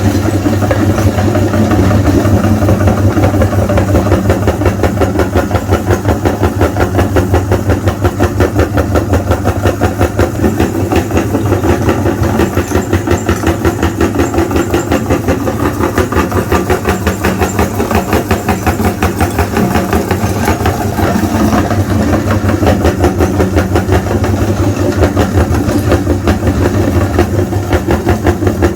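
Electric meat grinder motor running steadily with a low hum and a fast, even pulsing as it grinds sticks of coloured chalk.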